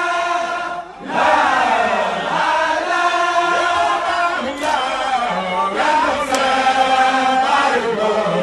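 A crowd of Baye Fall men chanting a devotional zikr together in long held notes, led by one strong male voice. The chant breaks off briefly about a second in, then resumes.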